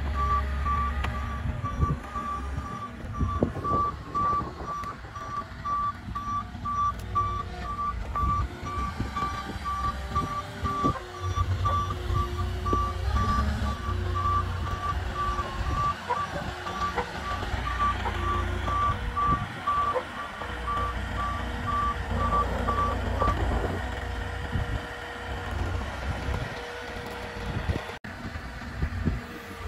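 Moffett M5 truck-mounted forklift running as it manoeuvres with a load, its back-up alarm beeping in a steady even run until a few seconds before the end. Under the beeps is the forklift engine's low rumble, with a few knocks.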